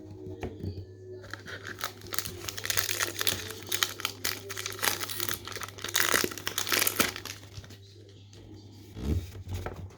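Trading-card pack wrapper crinkling and tearing as it is opened by hand: a dense crackle for several seconds that dies down near the end.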